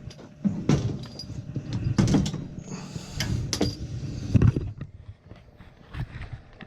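Irregular metallic clanks, knocks and scrapes of hardware being handled, over a low steady hum.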